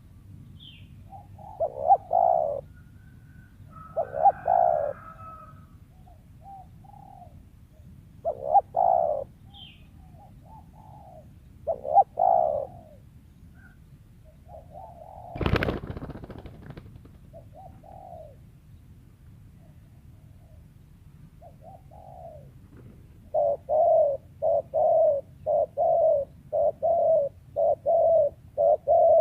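Spotted dove (tekukur) cooing: several separate cooing phrases, then a fast run of short coos, about two a second, near the end. A single loud knock about halfway through.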